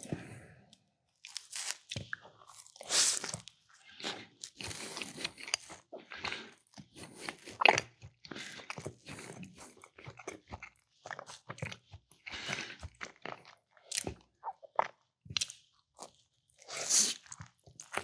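A person biting and chewing a meatball sub with mac and cheese close to the microphone, in uneven bouts of mouth noise with short pauses between.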